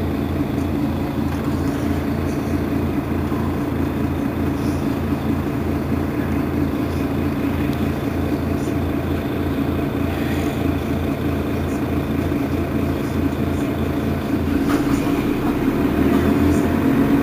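Mercedes-Benz Citaro facelift city bus engine idling steadily. Its low note changes about three-quarters of the way through and grows a little louder.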